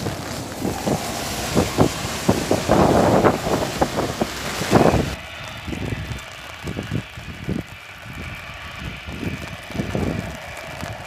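Gusty wind buffeting the microphone, loudest in the first five seconds, over the distant jet noise of a WestJet Boeing 737-800 on the runway. About five seconds in the hiss drops away, and a faint steady engine whine remains under weaker gusts.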